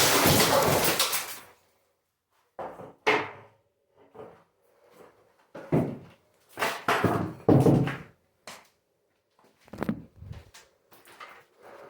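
Irregular heavy knocks and thuds, about one a second, some with a short rattling tail: pickaxe blows breaking concrete and chunks falling. Music fades out about a second in.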